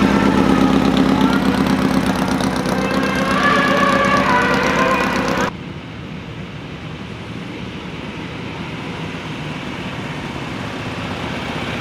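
Classic racing sidecar outfit engines running hard at close range, the engine note rising and falling. About halfway the sound cuts off suddenly and a fainter engine takes over, slowly growing louder as it approaches.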